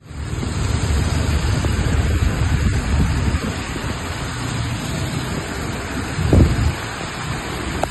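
Heavy rain and traffic on a flooded road, heard from a moving vehicle: a steady hiss of rain and tyres on water over a heavy, uneven low rumble, which surges louder about six seconds in.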